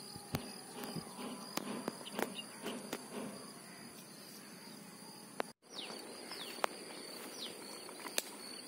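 Quiet outdoor ambience: a steady high-pitched insect drone, a few quick falling bird chirps a little past halfway, and scattered small clicks. The sound cuts out for a split second near the middle.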